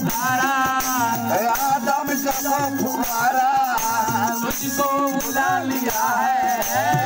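Qawwali: a man sings a gliding, ornamented melody into a microphone over an electronic keyboard. A jingling tambourine and a dholak hand drum keep a steady beat.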